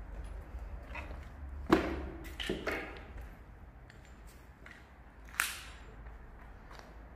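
A few sharp knocks, the loudest about two seconds in, a quick pair just after, and another about five and a half seconds in, each ringing on briefly.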